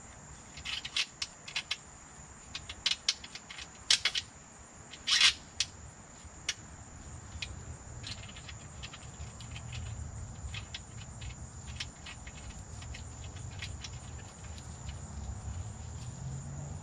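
Light metallic clicks and taps of a brass flare fitting and a flared copper propane line being handled and test-fitted together: a scatter of clicks in the first six seconds, the sharpest about four and five seconds in, then only a faint low rumble. A steady high-pitched tone runs underneath throughout.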